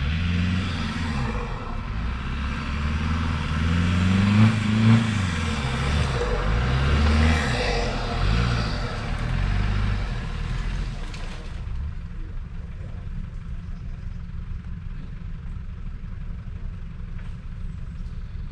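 An off-road 4x4's engine revving up and down again and again, running on throughout. A rushing noise over it cuts off sharply about eleven and a half seconds in.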